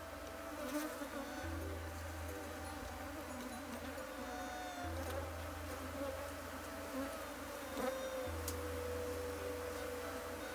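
Buzzing of a large number of honey bees from an opened wild colony, many wingbeat tones wavering and overlapping. A low rumble comes and goes underneath.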